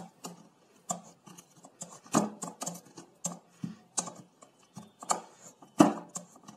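Wooden muddler pounding and pressing lemon pieces, mint and sugar syrup in a drinking glass: irregular knocks of wood against the glass, about two a second, the loudest about two seconds in and near the end.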